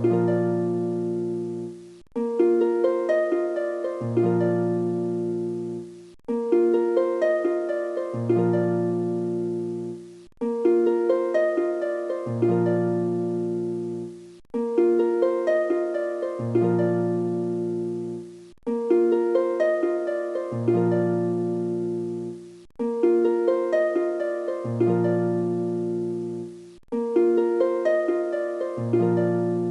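Background music: a short, gentle plucked-string melody that loops about every four seconds, with a brief break before each repeat.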